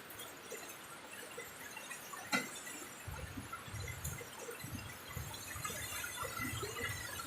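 Rain falling, with many scattered drips and taps and low gusts of wind rumbling every second or so. There is one sharper tap about two seconds in.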